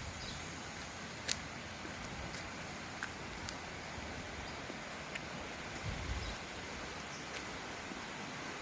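A creek's steady rushing flow, with a few short sharp clicks scattered through it and a brief low thump about six seconds in.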